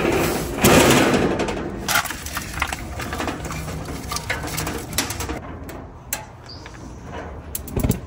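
Handling noises of a propane cylinder being set in place under a gas grill and its regulator hose being connected: a loud scuffle about a second in, then scattered metal clicks and knocks, with a sharper knock near the end.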